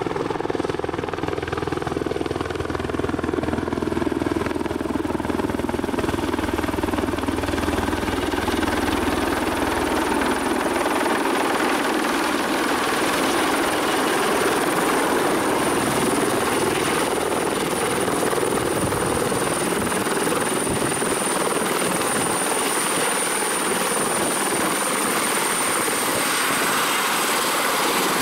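Eurocopter EC120 Colibri helicopter coming in to land and settling onto its pad. The rotor and turbine run steadily with a high whine throughout; a deep low rumble fades out about ten seconds in, and the whine dips slightly near the end.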